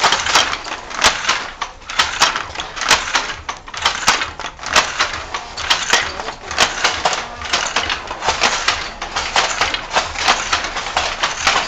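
Wooden treadle floor loom clattering as it is worked: a rapid, uneven run of sharp wooden knocks and clacks, several a second, from the beater, shuttle and treadles.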